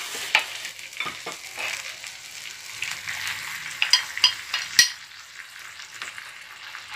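Canned tuna sizzling in its own oil in a hot frying pan, stirred and scraped with a wooden spatula, with light knocks. Around four seconds in, kimchi is tipped from a bowl into the pan, followed by a sharp knock a moment later.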